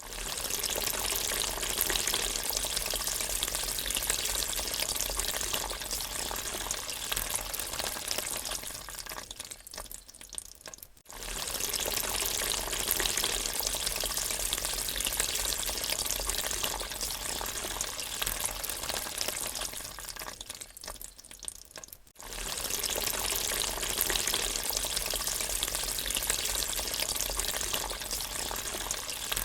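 Water draining: a steady rushing hiss that tails off and cuts out about eleven seconds in, starts again, tails off and cuts out again near twenty-two seconds, then starts a third time.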